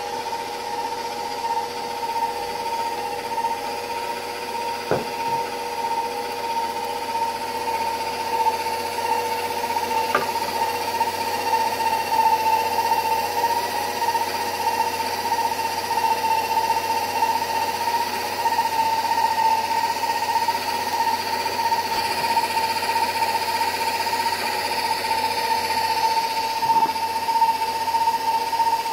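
KitchenAid stand mixer motor running steadily with its fruit and vegetable strainer attachment, a constant whine while the auger presses tomatoes through the strainer screen. The running gets slightly louder about ten seconds in, with a couple of faint clicks early on.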